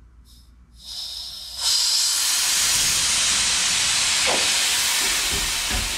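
Compressed air hissing out of the rear air-ride suspension bags as they are deflated to lower the truck to ride height. A softer hiss starts about a second in, then turns into a loud, steady hiss half a second later that eases off slightly near the end.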